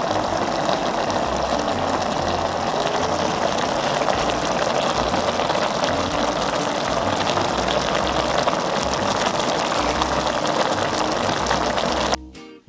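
Broth in a pot of braised pork back ribs boiling, a steady dense bubbling hiss, over background music. The boiling cuts off abruptly near the end.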